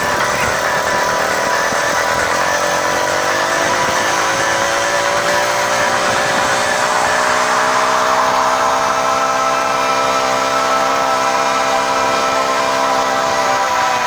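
Small engine of a motorized bicycle running under way. Its pitch climbs over the first few seconds as the bike picks up speed, then holds steady.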